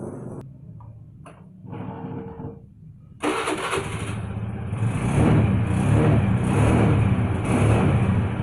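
Engine started with freshly replaced spark plugs: it catches suddenly about three seconds in, then runs with its level swelling and falling several times as the throttle is blipped.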